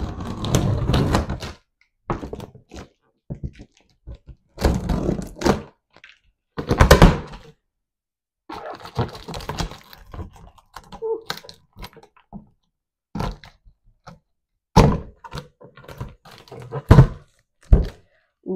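Large cardboard box being opened: scissors cutting through the packing tape along the seam, the tape pulled and the cardboard flaps worked open. It comes as irregular rustles, sharp clicks and thunks with short pauses between them.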